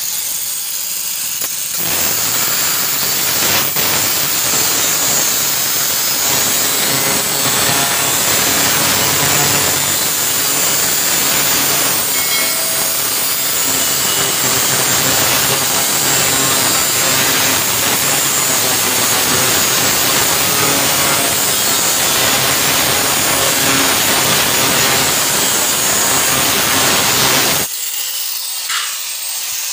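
Handheld angle grinder with a cutting disc running and cutting through a steel rolling-shutter profile strip, a loud, steady screech. Near the end it comes off the work and the sound drops sharply.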